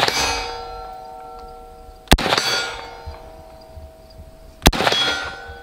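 Two semi-automatic shots from an H&K SL8-1 rifle, about two and a half seconds apart. Each is followed by the clear ring of a struck steel plate target fading over a second or two. The start holds the ring of the hit just before.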